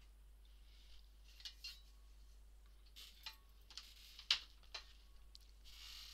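Art supplies being handled: scattered light clicks and taps of small hard objects, with some soft rustling, and one sharper click about four seconds in.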